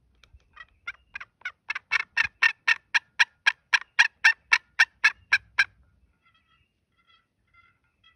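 A long series of turkey yelps, about four a second, building louder and then tapering off after about five and a half seconds, followed by a few faint softer notes.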